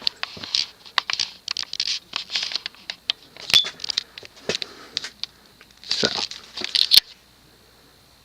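Irregular rustling with many light clicks and ticks, handling noise, which stops abruptly about seven seconds in.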